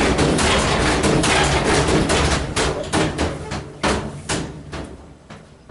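GE GTW335ASN0WW top-load washer knocking and banging loudly, a quick run of hard knocks that grow weaker and further apart over the last few seconds. The load is uneven, bunched into a tight ball, and is throwing the tub off balance.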